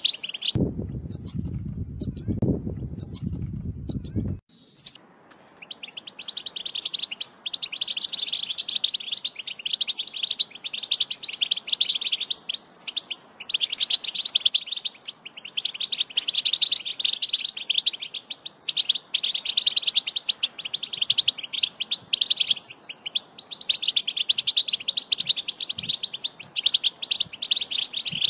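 European goldfinches singing: a fast, continuous twittering song, broken now and then by short pauses. For about four seconds near the start the song stops and a loud low rumble takes its place.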